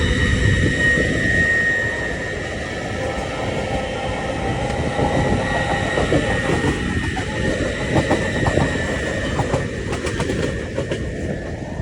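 LNER Azuma high-speed train running fast along the main line: a steady rumble with a high, steady whine over it, and a run of clicks from the wheels in the second half.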